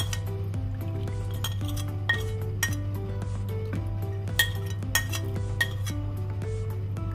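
About six sharp clinks of a white ceramic plate being tapped as powdered spices are knocked off it into the pot, over background music with a melody and a steady low hum.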